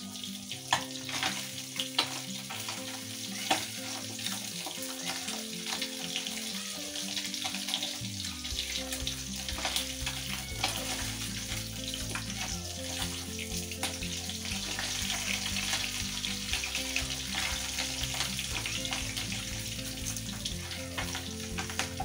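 Hot oil sizzling and crackling in a kadai on a gas flame, with sharp pops now and then in the first few seconds. Soft background music plays along, a bass line coming in about eight seconds in.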